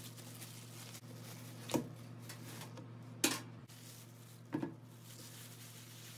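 Plastic bag crinkling and rustling, with three brief sharp knocks and crinkles, as whole fish are slid out of the bag onto a cutting board. A faint steady low hum lies underneath.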